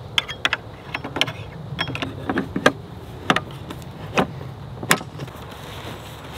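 A Starlink satellite dish's mast being handled and seated into its stand: about ten sharp plastic clicks and knocks over five seconds, over a low steady rumble.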